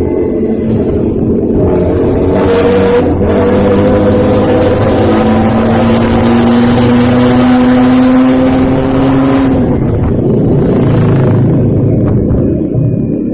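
Diesel engine of the Lusela intercity bus running loud through its modified 'ngorok' (snoring) exhaust. The engine note climbs slowly as it pulls hard from about two seconds in, then eases off after about nine seconds.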